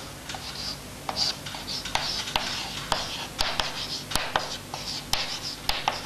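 Chalk writing on a blackboard: a quick, uneven run of short scratchy strokes and sharp taps as letters are chalked on.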